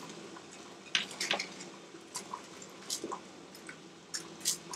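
Whole okra pods being set by hand into an aluminium pot of meat: scattered soft taps and knocks, about six over the few seconds, over a faint steady background.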